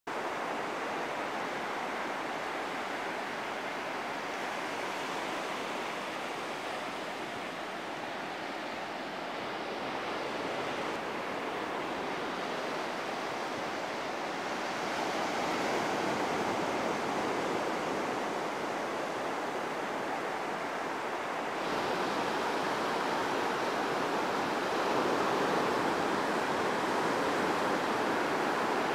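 Ocean surf washing onto a beach: a steady rush of breaking waves that grows somewhat louder through the second half, with a couple of abrupt changes in tone where the recording is cut.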